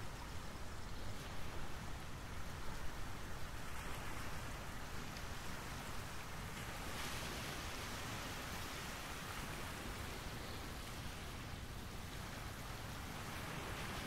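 Steady outdoor background hiss with no clear bird call; it grows a little fuller about halfway through.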